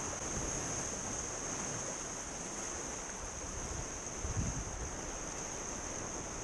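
Sea surf and wind by the water, with a low gust of wind buffeting the microphone about two-thirds of the way through and a steady high-pitched whine behind it all.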